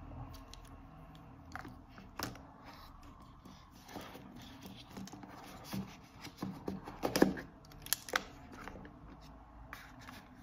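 Handling noise from a polycarbonate watch and its link bracelet: scattered small clicks and rattles as the links and clasp are flexed, with a few louder knocks about seven to eight seconds in as the watch is set into its presentation box.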